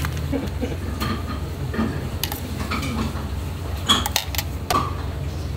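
Dishes and utensils clinking and clattering during restaurant kitchen work over a steady low hum, with the sharpest clatter about four seconds in.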